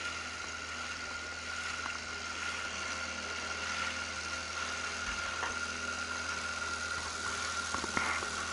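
Boat engine running steadily while under way: an even hum with a thin, steady high tone over it.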